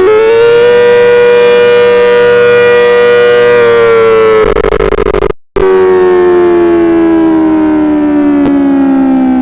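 Federal Signal 2001 outdoor warning siren sounding loud. It winds up to a steady wail and holds it for a few seconds, then flutters rapidly for about a second. After a short break it starts again, with its pitch sliding slowly downward as it winds down.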